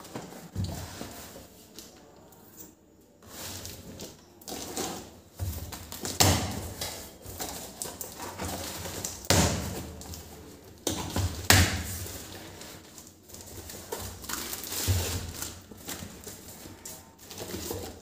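Cardboard box and plastic packaging being handled: irregular rustling, scraping and crinkling, with several soft thuds as the box and parts are moved on the table.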